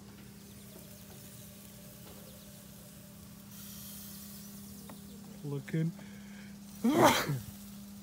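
Kebabs sizzling faintly on a portable propane grill as its lid is opened, over a steady low hum. A brief loud vocal burst comes near the end.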